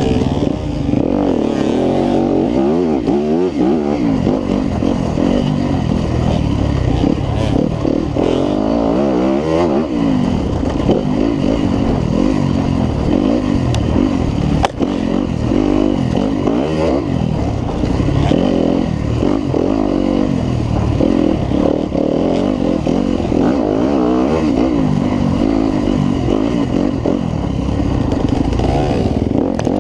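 Yamaha WR250F dirt bike's single-cylinder four-stroke engine revving up and down over and over, the pitch rising and falling as the throttle opens and closes.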